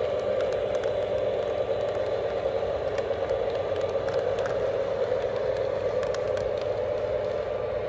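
Lionel model train running on its track: a steady motor hum with scattered light clicks and rattles.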